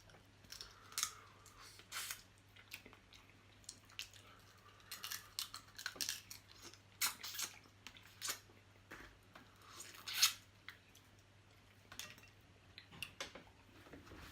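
Close-miked eating of a crab seafood boil: faint, irregular wet chewing and mouth smacks, with scattered sharp clicks.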